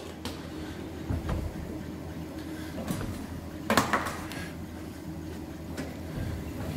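Metal clanks and knocks from work at a lathe, with a brief loud clatter about halfway through, over a steady low machine hum.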